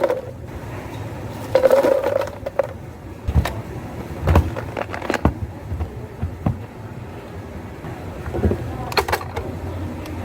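Cafe counter work: scattered knocks, clinks and scrapes of cups, utensils and equipment being handled, over a low steady hum.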